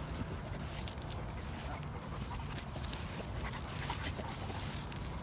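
Dogs whimpering faintly over a steady low rumble.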